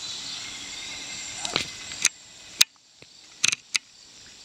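Steady high-pitched insect chirring over a faint outdoor hiss, broken by several sharp clicks between about one and a half and four seconds in; the chirring grows fainter after the click about two and a half seconds in.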